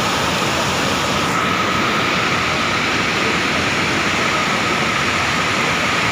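Muddy flash-flood torrent rushing past, a steady heavy rush of fast water.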